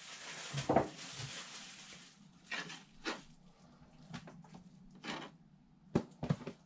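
A plastic cutting board being scraped and wiped clean by hand and knife: a long scraping hiss for about the first two seconds, then a few scattered short knocks and scrapes.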